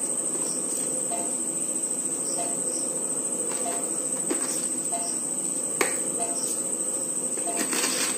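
Crickets trilling steadily: a continuous high-pitched trill, with a shorter, lower chirp repeating about every half second. A few faint clicks are heard.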